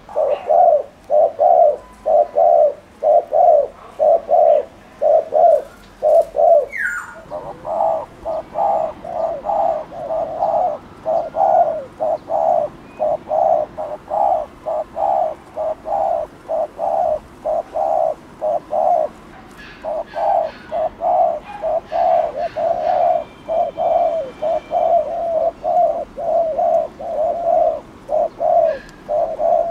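Spotted dove giving its rapid 'gù' coo: short cooing notes repeated about two a second, with brief pauses about seven seconds in and near nineteen seconds.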